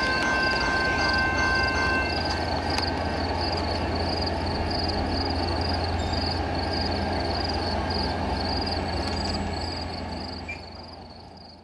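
VIA Rail Canada's Canadian passenger train rolling past a level crossing with a steady rumble, under the crossing bell ringing several times a second. A train horn chord cuts off about two seconds in, and the train's rumble fades away over the last few seconds.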